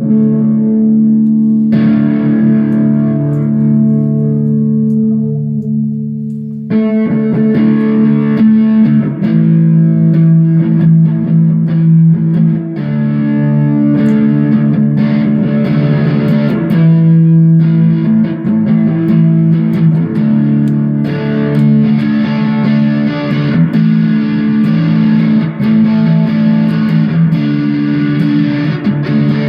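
Gibson electric guitar played through a distorted Marshall amp in a solo jam. Notes are held and left to ring for the first few seconds, then busier continuous playing starts about seven seconds in.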